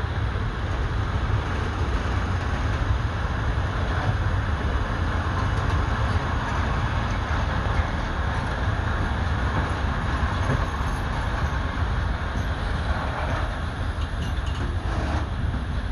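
Train of loaded coal wagons rolling steadily past on the track, a continuous low rumble of wheels on rails.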